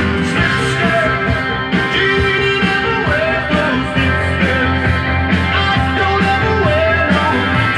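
A vinyl record playing on a Dual 1257 belt-drive turntable: continuous guitar rock music.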